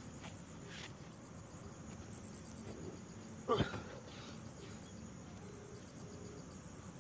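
Insects chirping in short, high, pulsed trills repeating at a steady pace, with one brief loud sound falling in pitch about halfway through.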